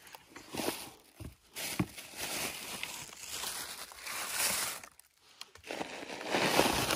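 Dry crunching and crinkling rustle in two spells, broken by a short pause about five seconds in.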